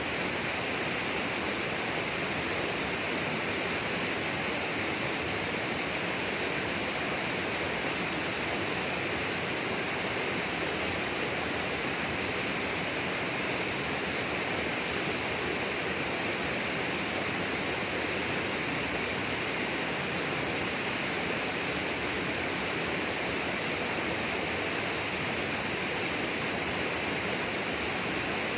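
Steady, unbroken rush of running water with an even hiss, no single events standing out.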